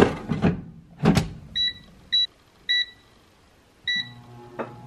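Gourmia air fryer being set to preheat: the basket clunks into place about a second in, the control panel gives four short beeps as its buttons are pressed, and its fan starts a steady hum near the end.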